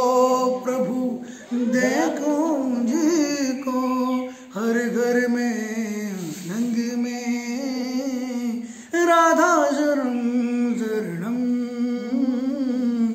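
A man singing a slow melody in phrases of long, wavering held notes, with short breaks between the phrases.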